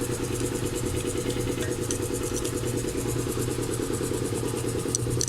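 A steady engine-like mechanical drone with a fast, even pulsing, and a few faint clicks near the end.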